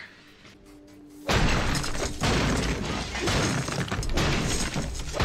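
Glass shattering and crashing in a TV drama's soundtrack, starting suddenly about a second in and going on as a dense run of sharp cracks and debris.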